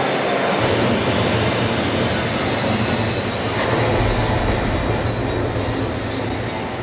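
Loud, steady rumbling and hissing sound effects played over a show's sound system, with a deep low rumble coming in just under a second in and swelling about halfway through.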